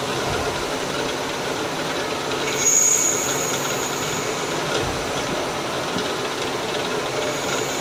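CNC lathe running steadily, its spindle turning a nylon part as the tool works at it. A brief high-pitched whine sounds about three seconds in, the loudest moment, and comes back faintly near the end.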